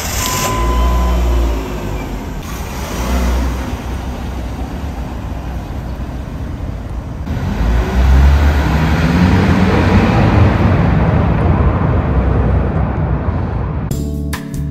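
Car engine running, then a small sedan accelerating away through a concrete parking garage, the engine revving up with its pitch rising about eight seconds in, echoing off the concrete.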